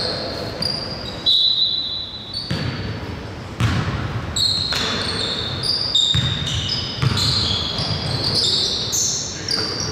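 Basketball game on a gym court: the ball thuds on the floor now and then while sneakers squeak sharply again and again, echoing in the hall.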